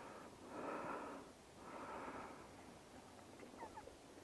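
A person breathing hard close to the microphone: two long, breathy exhalations in the first two and a half seconds, then quieter breathing.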